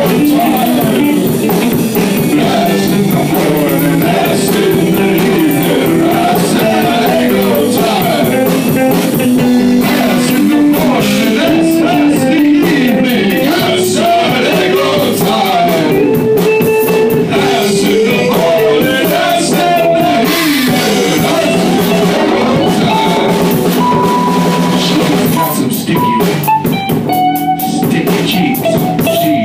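A live band playing: drum kit and electric guitar with a vocalist singing into a microphone.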